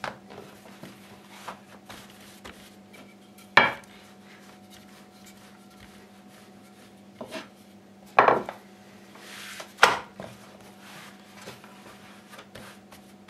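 Wooden rolling pin working bread dough on a wooden worktop: soft rolling and rubbing with a few sharp wooden knocks, the loudest about three and a half seconds in and two more around eight and ten seconds. A steady low hum sits underneath.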